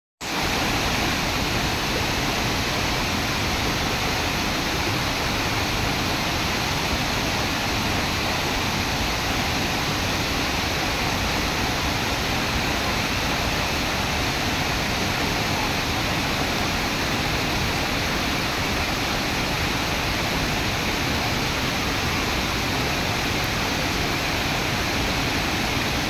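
Steady rush of water tumbling over small rocky cascades in a shallow stream.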